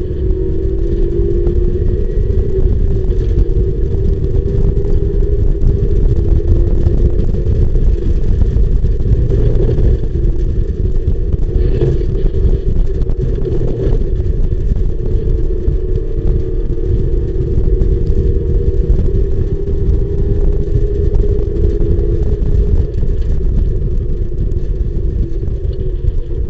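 Mazda MX-5 race car's four-cylinder engine running hard at high revs, heard from inside the open cockpit over a heavy low rumble of wind and road noise. The engine note breaks up briefly midway and drops near the end as the car slows for a corner.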